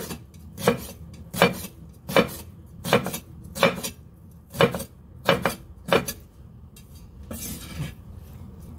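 Chinese cleaver chopping through salty pickled Chinese cabbage on a wooden chopping block: about eight strokes at an even pace, roughly one every three-quarters of a second. Near the end comes a brief scrape of the blade across the board as the cut strips are scooped up.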